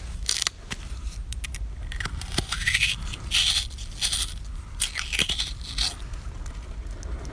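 Stainless-steel melon baller cutting into a raw green radish and twisting round, with crisp, crunchy scraping in several bursts as the scoop carves out a ball of the flesh.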